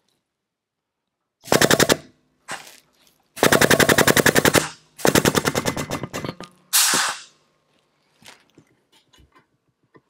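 Air pump of a 12-ton air-over-hydraulic bottle jack rattling in three bursts as the foot pedal is pressed, a fast even pulse of about a dozen strokes a second, pumping the ram to crimp a terminal lug onto 6-gauge cable. A short burst of hiss follows, then a few faint clicks.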